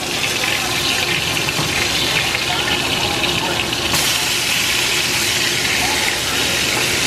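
Food frying in hot oil in a skillet, sizzling with a steady hiss that grows sharper about four seconds in as a spatula turns the pieces.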